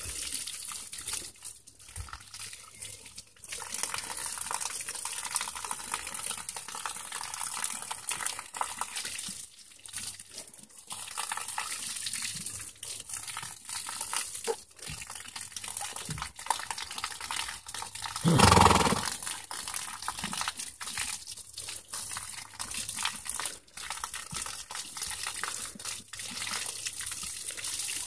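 Water spraying in a steady, hissing jet from a hose held in a horse's mouth, splattering on the horse's chest and the wet ground. The spray falters briefly now and then, and there is one short, louder rush of noise about two-thirds of the way through.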